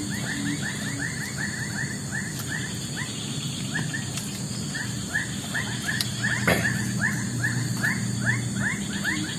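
An animal calling in a fast run of short, curved chirps, about four a second, thinning briefly about four seconds in and then picking up again. A steady high insect-like drone runs behind it, and there is a single sharp tap about six and a half seconds in.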